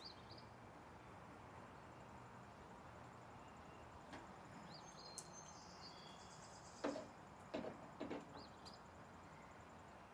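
Near silence: room tone, with a few faint short knocks about seven to eight seconds in.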